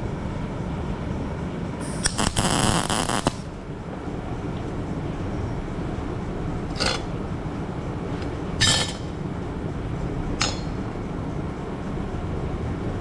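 Wire-feed welder laying a single tack weld on a small steel cube corner: a crackling arc about a second and a half long, starting about two seconds in. Three short metallic clinks follow as the steel pieces are handled on the steel welding table.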